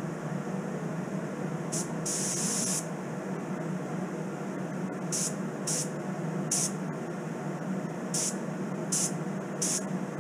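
Gravity-feed paint spray gun spraying Cerakote coating in trigger bursts: one longer burst about two seconds in, then six short puffs, each a sharp hiss, over a steady low hum.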